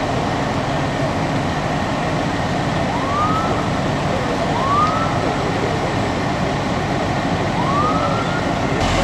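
Three short rising siren whoops from an emergency vehicle, spaced a second or more apart, over a steady rumble of idling engines and traffic.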